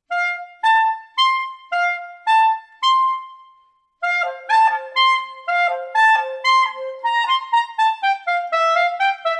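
Clarinet playing a melody in its upper register: first a string of separate notes, then, after a short break about four seconds in, a quicker flowing line with lower notes alternating between the upper melody notes.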